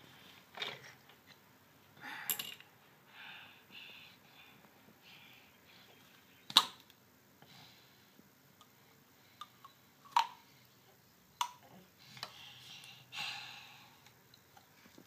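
A few sharp clicks and taps of small makeup items being handled on a hard countertop, the loudest about six and a half seconds in, with short softer scuffs between them.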